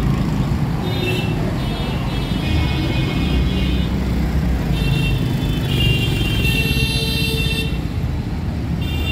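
Busy city street traffic heard from a moving motorcycle: engines running under repeated vehicle horns honking, several short toots and one longer blast of about a second and a half near the middle.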